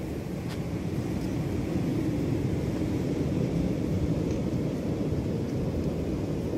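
Steady low rumbling wind noise buffeting a phone microphone outdoors, a little louder from about two seconds in.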